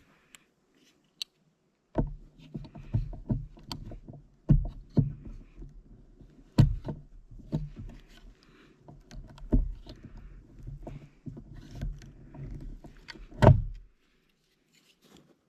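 A folding multitool's screwdriver being worked by hand to drive a screw: irregular clicks and knocks with low thuds as the tool is turned, slips and is repositioned, starting about two seconds in and stopping shortly before the end.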